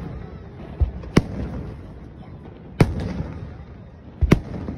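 Aerial fireworks shells bursting overhead: sharp bangs about a second in, near three seconds and a close pair just after four seconds, with a duller thud just before the first and rumbling echo between the bursts.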